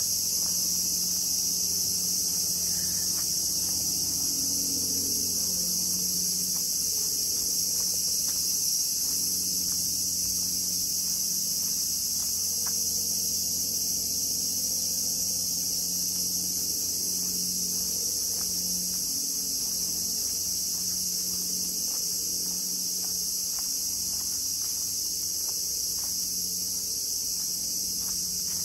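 Steady, unbroken high-pitched chorus of insects, with a faint low steady hum underneath.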